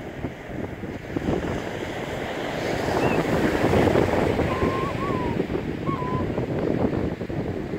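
Surf washing on a sandy beach, with wind buffeting the microphone; the noise swells about three seconds in. A few short thin whistle-like notes sound faintly midway.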